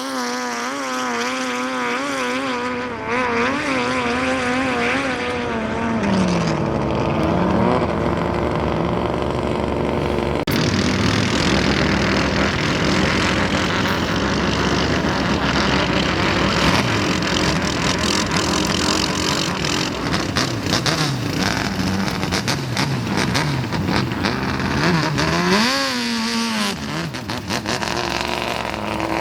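Racing speedboat engines running hard, loud and rough. Their pitch rises and falls as the boats pass, with a sharp rev near the end.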